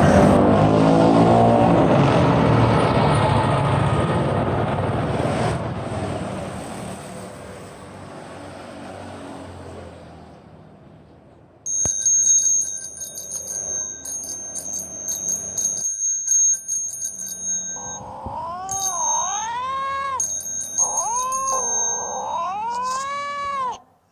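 Traffic noise fading away over about ten seconds, then, after a brief lull, a high-pitched ringing that stutters rapidly starts abruptly. From about two-thirds of the way in, a cat meows five or six times over the ringing, each call rising and then falling in pitch.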